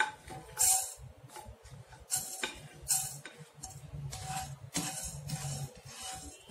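Dry coriander seeds tipped from a plate into a hot nonstick kadai and stirred, rattling and scraping against the pan in several short bursts, the first ones the loudest.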